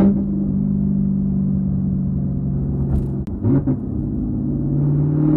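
Chevrolet Camaro ZL1's supercharged 6.2-litre V8 running through a Corsa cat-back exhaust with NPP valves, held at steady revs while driving. The engine note steps up in pitch at the start, dips and climbs again briefly about three and a half seconds in, and rises near the end. There is a sharp click about three seconds in.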